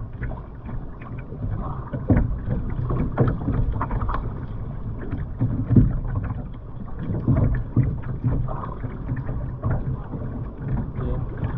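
Muffled water sloshing with irregular dull knocks, heard through a GoPro held in the sea beside a kayak.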